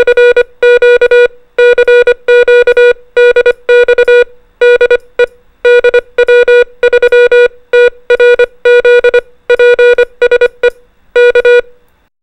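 Morse code (CW) sent as a beep at one steady pitch, keyed on and off in dots and dashes with spaces between letters. It spells out the amateur radio call sign DW3TRZ and closes with K, the invitation to transmit.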